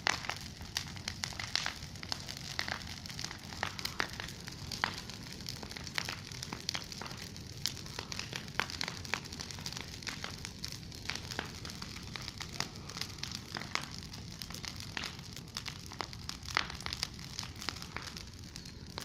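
A bonfire of dry potato tops burning, with many irregular sharp crackles and snaps.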